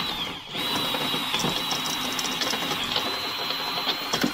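Power drill motor running with a steady whine. The trigger is let off and pressed again about half a second in, and the drill spins down at the end.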